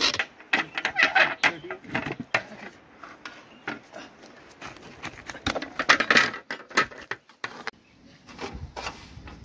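Long metal ladle scraping and knocking against a large metal cooking pot as cooked spiced potatoes are stirred, in irregular clusters of sharp clanks and scrapes, busiest near the start and again about six seconds in.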